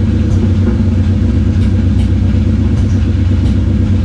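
Nissan 350Z's VQ35DE V6 running with a steady low rumble, misfiring and sputtering. The cause is a wrong flywheel whose extra timing notches throw off the crank position sensor.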